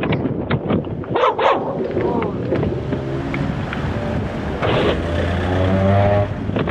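Wind buffeting the microphone, with sharp taps at the start and a couple of short, high yelping cries about a second in. A van's engine passes close by near the end and is the loudest thing heard.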